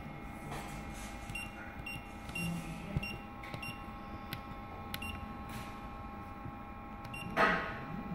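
Keypad of a Promecam press brake's CNC control giving short high beeps as its keys are pressed, over a steady electrical hum from the machine. A brief louder noise comes near the end.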